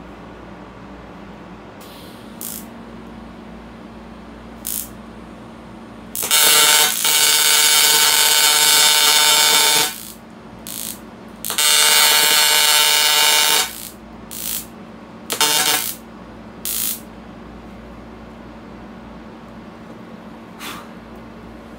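AC TIG welding arc from a Lincoln TIG 200 welder running at 200 amps and 150 hertz: a loud, steady buzz in two runs of about three and a half and two seconds. Several short bursts of arc come before, between and after the runs.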